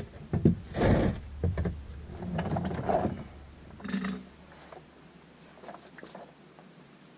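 Irregular knocks and handling rustles as the oil drain plug is spun out by hand and pulled, then, from about four and a half seconds in, a faint steady sound of warm engine oil draining into the drain pan.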